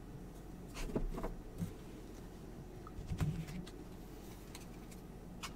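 Faint handling noise of trading cards and packs: a few light taps and rustles about a second in and again around three seconds in, over a low steady hum.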